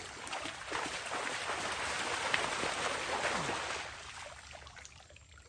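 Shallow seawater being scooped and splashed up by hand, falling back into the water in a dense, rain-like patter. It fades out about four seconds in.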